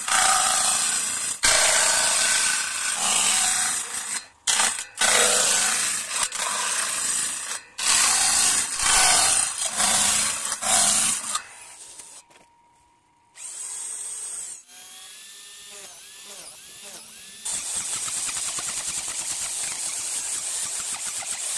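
Table saw ripping teak boards in several loud passes with short breaks between them, then stopping. After a brief lull and a few seconds of a whining machine, a chisel mortising machine runs steadily from about 17 seconds in, cutting a mortise into a teak beam.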